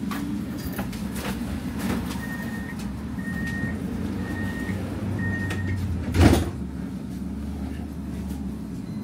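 Tram interior with a steady low rumble. Four evenly spaced high beeps of the door-closing warning are followed about six seconds in by the doors shutting with a loud thump, then a deeper rumble.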